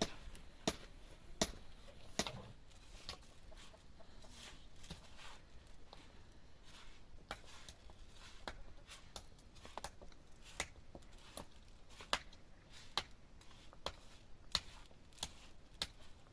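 A series of sharp, irregular knocks and taps, roughly one a second, over a quiet background.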